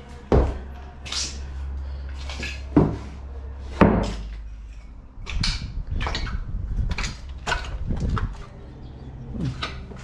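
An old door being opened and pushed through, with a few sharp knocks and then a run of clatters as it bumps and swings.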